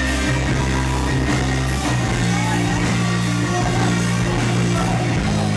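Live rock band playing loudly: electric guitars, bass, keyboard and drums with cymbal hits, the bass line moving to a new note about two seconds in and again near the end.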